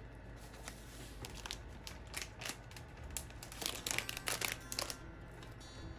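Plastic food packet crinkling as it is handled over a bowl: scattered crackles, thickest and loudest about four seconds in.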